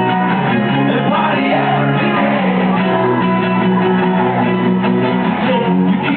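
Live band playing a rock song on acoustic guitars, keyboard and sousaphone, with singing.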